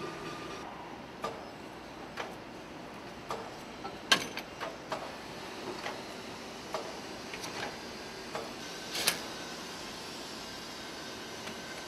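Assembly-line ambience: a steady hum of factory machinery, with scattered short metallic clicks and knocks from tools and parts being handled. The sharpest knocks come about four seconds in and about nine seconds in.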